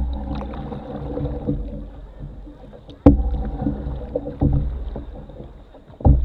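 Canoe paddle strokes heard through the hull, about every one and a half seconds; each starts with a sharp knock followed by a low, fading rumble.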